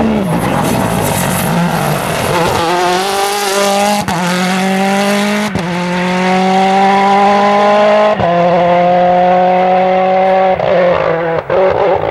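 Mini John Cooper Works WRC rally car's 1.6-litre turbocharged four-cylinder engine at full throttle, accelerating away on a gravel road. A rush of gravel and tyre noise comes first as the car slides through the corner, then the engine note climbs in pitch, broken by four quick upshifts.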